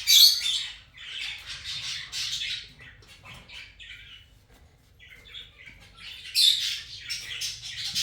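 Kakariki parakeets calling in a string of noisy, high-pitched bursts. The calls are loudest right at the start and again in the last couple of seconds, with softer calls between.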